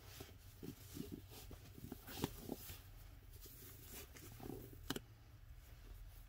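Faint handling noise: soft rustling of fabric and light knocks as hands adjust a doll's clothes on a crib mattress, with two sharper clicks, about two seconds in and near five seconds in.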